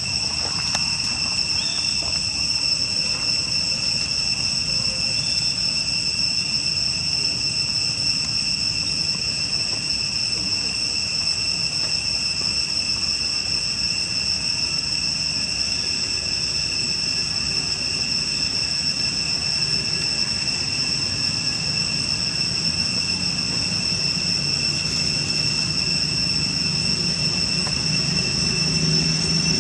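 Steady, high-pitched insect chorus droning without a break, with a low rumble underneath that grows louder near the end.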